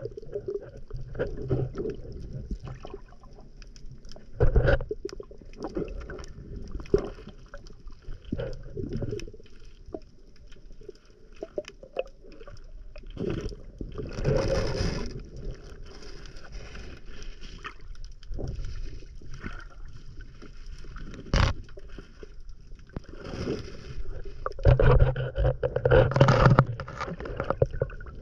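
Water sloshing and splashing around a small boat at a fish pen, broken by irregular knocks and thuds, with a louder stretch of splashing near the end.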